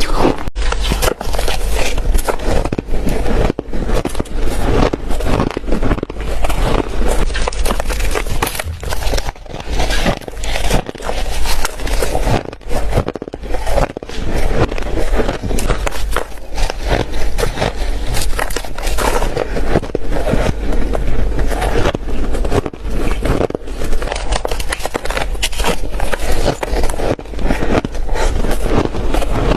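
Close-miked biting and chewing of spoonfuls of shaved ice: continuous, dense crunching.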